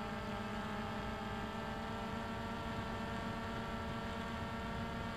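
A steady hum made of several tones, unchanging in pitch and level.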